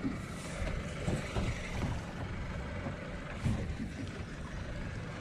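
Steady low rumble of a small boat at sea, with a few soft, irregular thumps.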